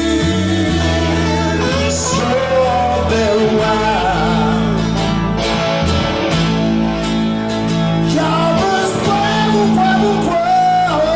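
Live band playing a song: electric bass, strummed acoustic guitar and electric guitar, with a man singing the lead vocal.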